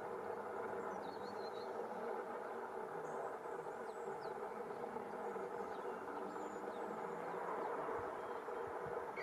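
A steady hum from the camera itself, several pitches at once, is the loudest sound throughout. Faint, short, high bird chirps and calls come through a few times in the background.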